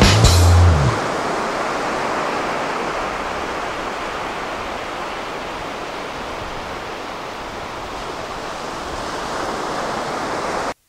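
Steady ocean surf on a sandy beach, a constant hiss of breaking and washing waves that follows the end of background music about a second in and cuts off suddenly near the end.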